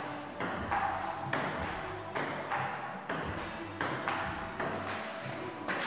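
Table tennis rally: the celluloid ball clicks back and forth between paddles and table, about two or three sharp clicks a second.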